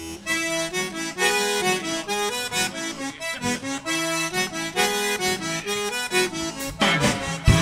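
Instrumental music: a lively tune of quick, changing notes that gets louder and fuller near the end.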